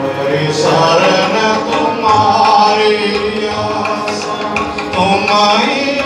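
Sikh kirtan: devotional hymn singing with tabla accompaniment.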